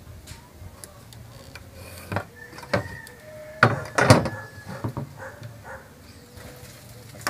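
A handful of sharp knocks and clatter from a pine board and a steel framing square being handled on a concrete workbench. The loudest knocks come about four seconds in.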